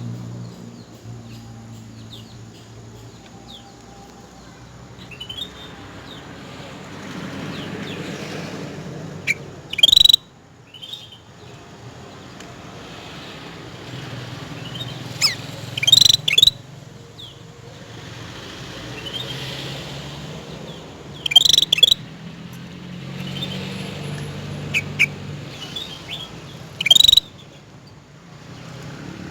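Cucak rante bird calling: loud, sharp, short calls repeated about every five to six seconds, with fainter calls between them, over a steady low background hum.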